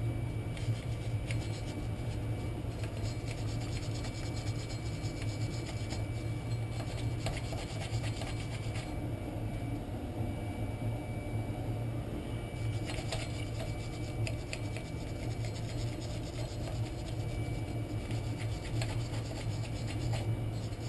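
Hand wire brush scrubbing rust off a car's rear wheel hub face in irregular scratchy strokes, over a steady low hum.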